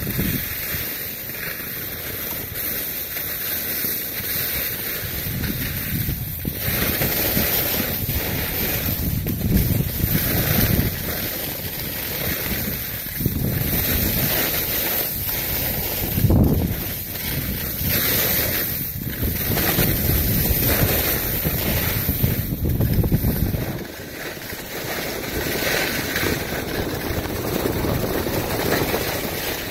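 Wind buffeting the microphone of a skier going downhill, mixed with the scraping hiss of skis on packed snow. It swells and eases in waves and drops back for a moment near the end.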